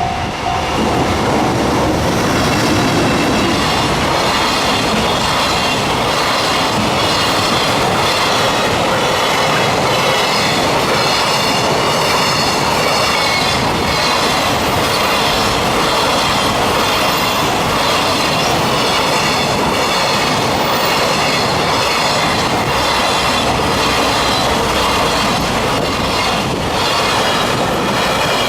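A JR Freight container train rolling past close by: a loud, steady rumble of wagons and wheels on the rails, with high, wavering metallic ringing from the wheels throughout.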